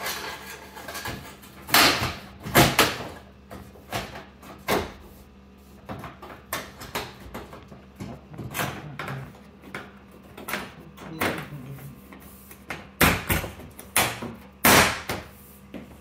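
Stainless-steel top grille panel of a KitchenAid built-in refrigerator being hooked on and pressed into place. Sharp clacks and knocks of the sheet-metal panel: a few about two seconds in, one near five seconds, and a quick run of them near the end.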